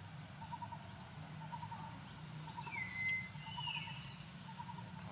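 Outdoor forest ambience with birds calling. A short pulsed call repeats about once a second, and a louder whistled call with a sliding pitch comes about three seconds in, over a steady low hum.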